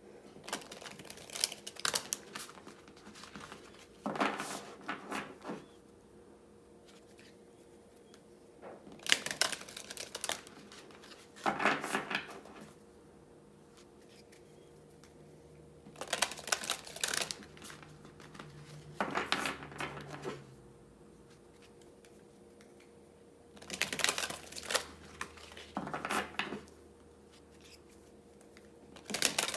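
A deck of oracle cards being shuffled by hand, the cards rustling and clicking against each other. The sound comes in about nine short bursts with brief pauses between them.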